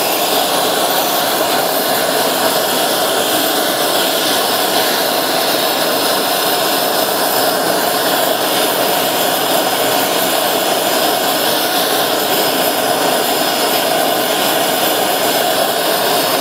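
Gas torch flame burning steadily with a loud, even rushing noise, turned up high to heat silver granules in a crucible toward melting.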